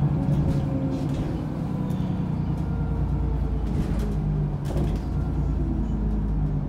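Alexander Dennis Enviro400 double-decker bus heard from on board, its engine running at shifting revs, with a few short clicks and creaks from the bus itself.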